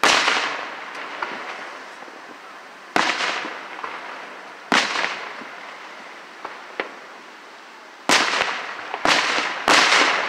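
Aerial firework shells bursting: six loud booms, each trailing off over about a second. Three come a couple of seconds apart, then three in quick succession near the end, with a couple of small pops between.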